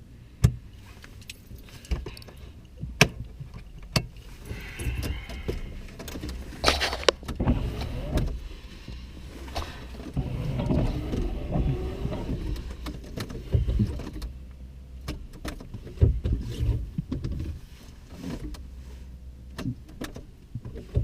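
Sharp clicks and rattling key and handling noise inside a car as the ignition is tried, with no engine starting: the ignition fuse has been pulled.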